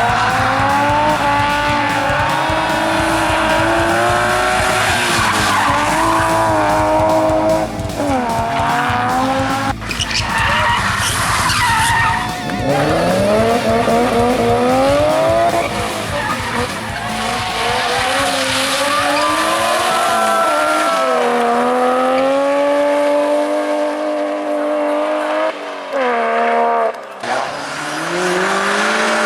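Hill-climb race car engines driven hard, the pitch climbing and dropping again and again through gear changes and lifts, with tyre squeal.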